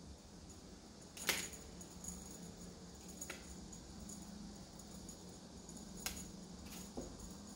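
A few light clicks and taps, four in all, the loudest about a second in, over a low steady hum.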